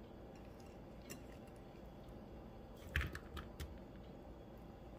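A few light clicks and taps about three seconds in, as tomato wedges are set down into a metal wok; otherwise faint room tone.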